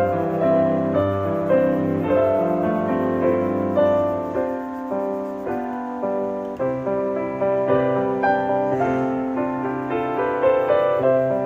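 Background piano music: a melody of struck notes that each die away, over longer held lower notes.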